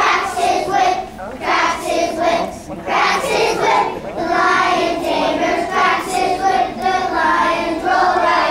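A group of young children singing a song together in sung phrases about a second long, with short breaths between them.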